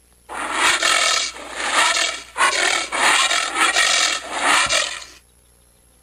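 Anteater calling: a run of about five rough, breathy calls, each half a second to a second long, ending about five seconds in.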